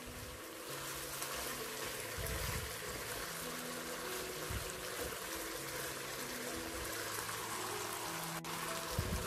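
Oyster-sauce braising liquid bubbling and sizzling around chicken wings as it boils down in a nonstick pan, with a spatula turning the wings and giving a few low scrapes. Soft background music with held notes plays underneath.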